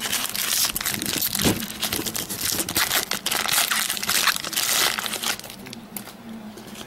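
Plastic wrapper of a baseball card pack crinkling as it is torn open and handled. The crinkling is dense for about five seconds, then dies down.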